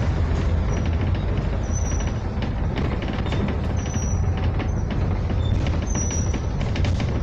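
Inside a moving double-decker bus: the engine's steady low drone, with frequent rattles and clicks from the bodywork and a few brief high squeaks.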